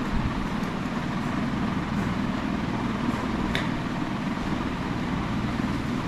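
Steady low background noise with a few faint clicks.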